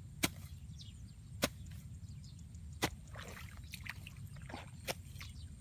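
Four sharp knocks, like chopping strikes, spaced one to two seconds apart over a low, steady background.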